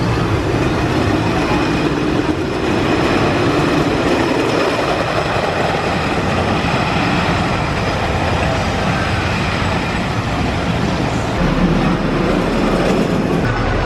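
Wooden roller coaster train running along its track, a steady loud rumble and clatter of wheels on the wooden track.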